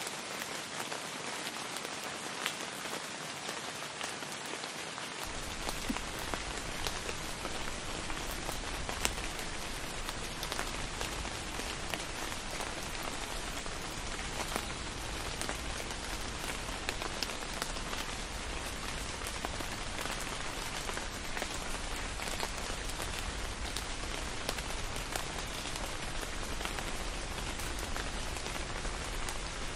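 Steady rain falling and pattering on surfaces, with scattered sharper drop ticks. A low rumble joins about five seconds in and carries on under the rain.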